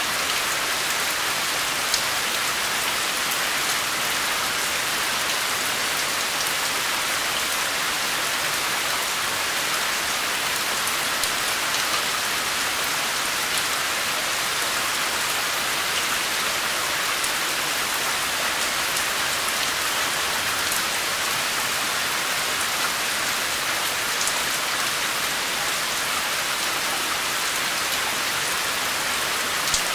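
Steady rain falling, an even hiss with scattered louder drop ticks.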